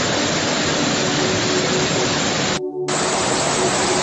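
Flash-flood torrent of muddy water rushing past, a loud steady rush of water. It cuts out for a split second about three quarters of the way in, then carries on.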